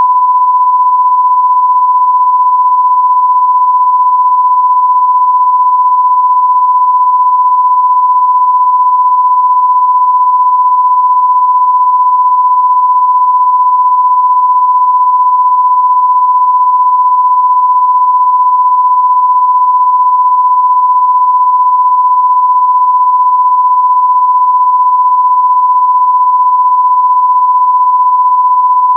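Electronic TV test-tone beep: one steady, pure, mid-pitched tone held unbroken and at an even loudness throughout.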